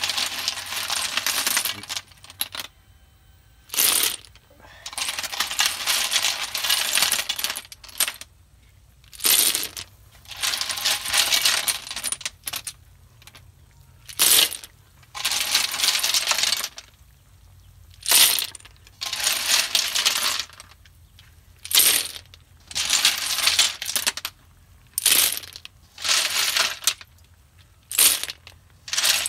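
Handfuls of sikad-sikad conch shells clatter and clink against one another and the metal wok as they are dropped in, handful after handful. There is a clattering burst every few seconds, with short pauses between.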